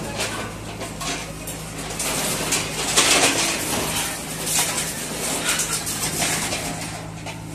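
JCB backhoe loader's diesel engine running under repeated metallic clanking and crashing of demolition debris, concrete rubble and sheet metal. The loudest crash comes about three seconds in.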